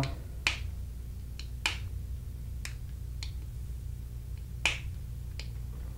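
Hand crimping tool clicking as it squeezes a crimp connector onto alarm wiring: a string of sharp, irregular clicks, three of them louder, about half a second, a second and three-quarters, and nearly five seconds in.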